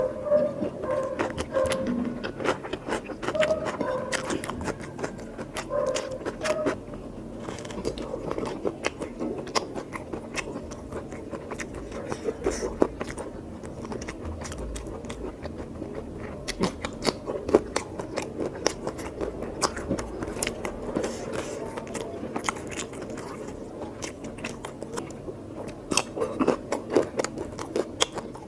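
Close-up eating sounds: a person chewing and biting mouthfuls of oily mutton curry and rice, with many wet clicks and smacks.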